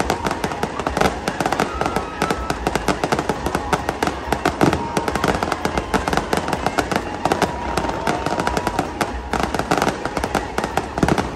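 Fireworks display: aerial shells bursting with continuous, rapid crackling and popping, many small reports a second.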